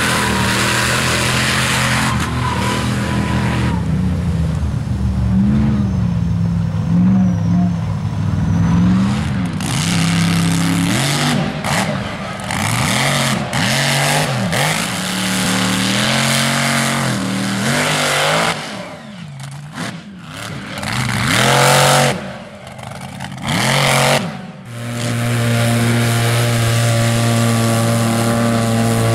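Engines of lifted 4x4 mud trucks and a side-by-side revving hard through a mud pit, climbing and dropping in pitch as the throttle is worked. The sound dips briefly past the middle, then holds a steady high-revving drone near the end.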